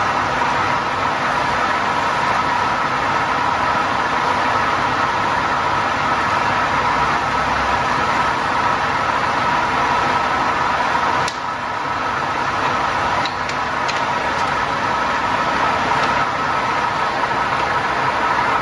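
Crankshaft grinding machine running steadily: a continuous machine drone with a steady whine. It dips briefly about eleven seconds in.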